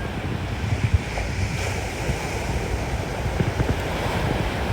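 Wind buffeting the microphone in irregular low thumps over a steady rushing background noise.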